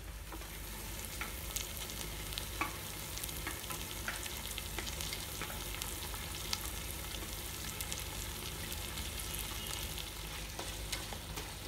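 Onion-tomato masala frying in groundnut oil in a pot: a steady sizzle with scattered crackles, as pressure-cooked mutton pieces are stirred into it.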